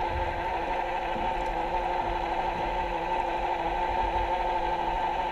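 A steady mechanical hum with several fixed pitches over a low rumble, heard underwater through a camera housing.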